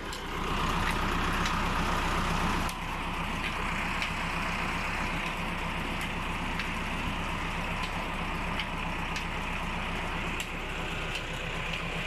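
Tractor's diesel engine running at a steady speed, driving a tubewell pump, with water gushing from the outlet pipe into a concrete tank.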